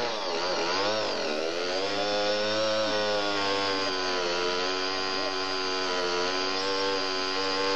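Two-stroke chainsaw engine, its pitch swinging up and down over the first second or so, then running at a steady speed.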